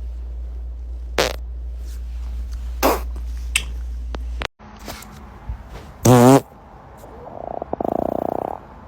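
A person's gas noises: a short, very loud one with a wavering pitch about six seconds in, then a longer, rattling, rapidly pulsing one lasting over a second. Before them a steady low hum runs and cuts off suddenly.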